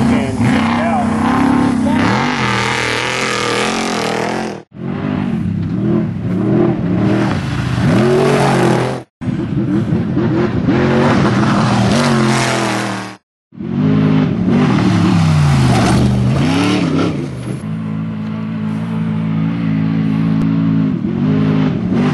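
Off-road race vehicle engine revving up and falling back again and again through gear changes, in several short clips joined by abrupt cuts. Near the end it holds a steady pitch for a few seconds.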